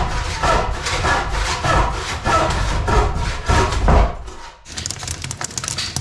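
Handsaw cutting through a wooden plank, with rasping strokes about twice a second. After about four and a half seconds it gives way to steady rain pattering.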